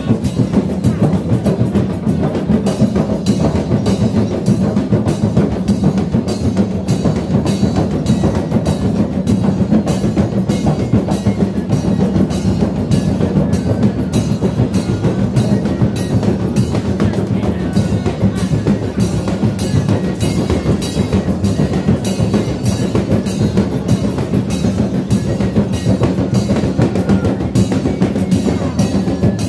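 A group of large hand-beaten frame drums (rebana) played together in a steady, evenly spaced beat that runs unbroken.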